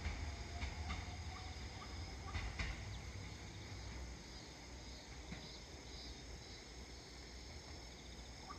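A departing train's low rumble slowly fading into the distance, with a few faint clicks in the first three seconds. Insects chirp faintly in the background.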